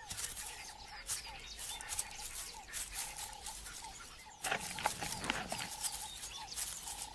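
Waterside savanna ambience: scattered short bird chirps and a recurring steady-pitched call, with a brief, fuller animal sound about four and a half seconds in.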